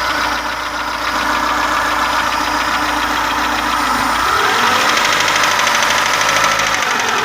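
Daewoo Sens engine running with a steady, rapid knocking through it, and the engine speed rises a little about four seconds in. The knock is what is being diagnosed; the owner says it comes neither from the rocker arms nor from the camshaft.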